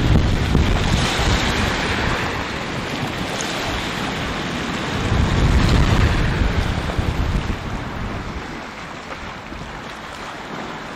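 Wind buffeting the microphone over the wash of sea waves on the shore. Strong gusts come near the start and again around the middle, then ease off toward the end.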